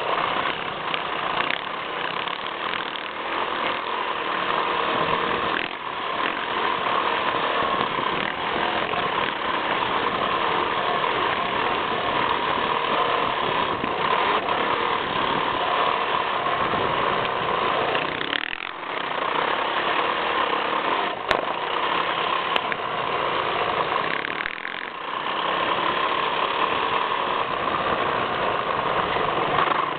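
Yamaha YZ450F four-stroke single-cylinder dirt bike engine running hard at speed, heard close up from the front fender with wind rush. The sound dips briefly twice in the second half as the throttle comes off.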